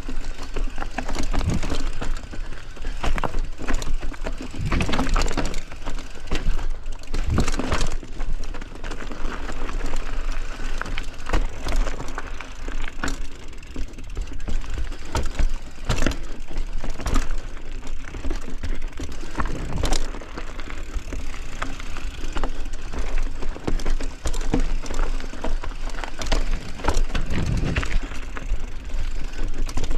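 Mountain bike riding over rough trail: a steady rush of tyre noise with frequent irregular knocks and rattles from the bike.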